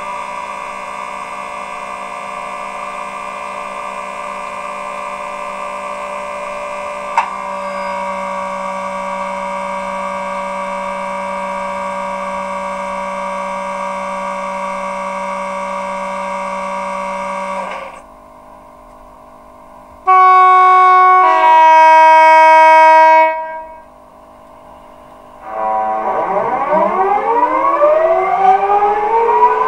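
DCC sound from an OO gauge Accurascale Class 92 electric locomotive model, played through its on-board speaker. The stationary locomotive's steady electrical hum and whine runs for about 18 seconds, with a click about seven seconds in after which the tone shifts, then dies away. About two seconds later comes a loud two-tone horn, a higher note then a lower one lasting about three seconds, and near the end rising, siren-like whines build as the traction equipment powers up.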